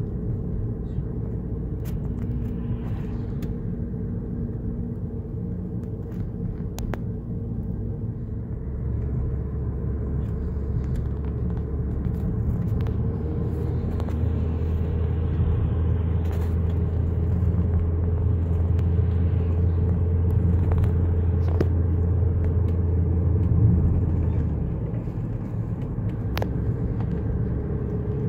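Car driving, heard from inside the cabin: steady engine and tyre rumble. A deeper, louder drone comes in about a third of the way through and eases off near the end, with a few faint clicks here and there.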